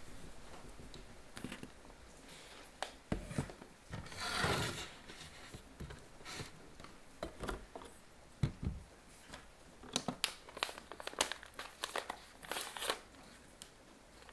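Coffee gear being handled on a tabletop: scattered light knocks and clicks as a kitchen scale and a steel cup are set down, with paper rustling and a quick run of crinkly clicks near the end as a paper coffee filter is folded.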